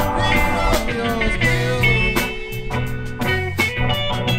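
Live blues band playing an instrumental passage: electric guitars, bass and drums, with a lead guitar line of sustained, bending notes over a steady drum beat.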